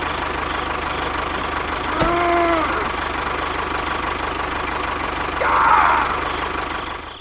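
A small engine running steadily at idle, with a short pitched tone that rises and falls about two seconds in.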